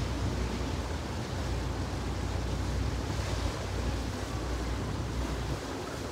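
Canal water churned by a passing motorboat's wake, lapping and sloshing against the stone embankment, with wind rumbling on the microphone that eases off near the end.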